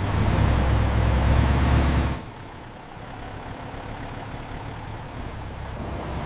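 Truck engine running with a loud low rumble that cuts off abruptly about two seconds in, leaving a quieter steady rumble.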